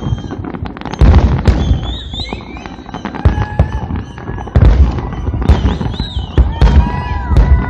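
Fireworks going off in quick succession: crackling bursts with heavier booms every second or two, loudest about a second in and from about two-thirds of the way through to the end.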